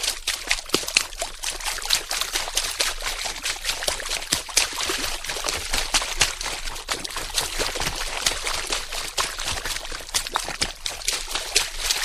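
Water splashing: a dense, irregular run of quick splashes that keeps going at an even level.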